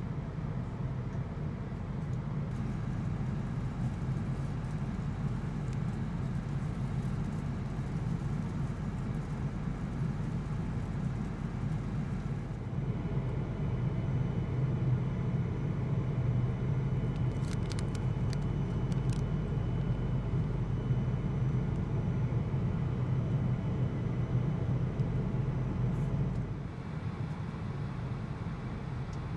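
Steady low rumble of a Boeing 777-200's engines and airflow heard inside the passenger cabin. It grows a little louder about twelve seconds in and drops back near the end.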